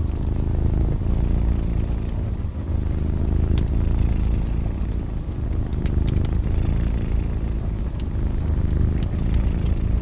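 A cat purring in a steady low rumble, with a wood fire crackling over it in scattered sharp pops.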